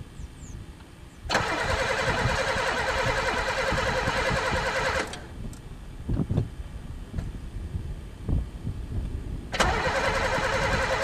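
Starter cranking the engine of a Pontiac that has sat for three years, in two tries: one of about four seconds that stops abruptly, then after a pause with a few thumps, a second one near the end. The engine turns over but doesn't catch, even with gas poured in the carburettor, which the owner suspects is down to no spark.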